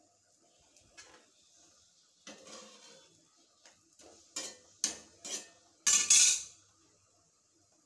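A metal spatula scraping and knocking against a pan as a thick adai pancake is worked loose and turned. It is a series of separate scrapes and taps, the loudest a longer scrape near the end.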